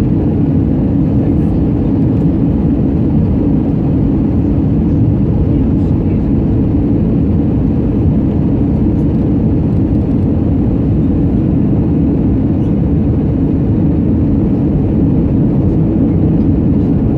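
Airbus A320 passenger-cabin noise: a steady, unchanging low rumble of engines and airflow.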